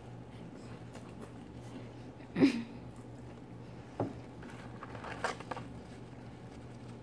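Close-up eating sounds: chewing and handling food, with one loud, sudden knock about two and a half seconds in and smaller clicks and rustles later, over a steady low hum.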